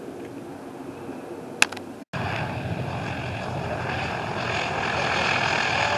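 Propeller aircraft's piston engines running on the runway, growing steadily louder over the last few seconds. Before that, a steady background of wind and hiss with a single sharp click about a second and a half in, then a brief dropout just after two seconds.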